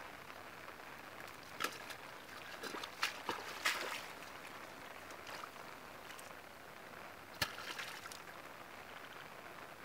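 Hands splashing and sloshing in shallow muddy paddy water: a cluster of short splashes between about one and a half and four seconds in and one sharp splash at about seven and a half seconds, over a steady hiss.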